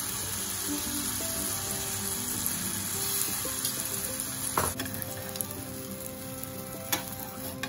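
Pancake batter sizzling in hot oil in a non-stick frying pan as it is spread out, a steady frying hiss. A couple of sharp clicks of a metal spatula against the pan, one about halfway and one near the end, with soft background music underneath.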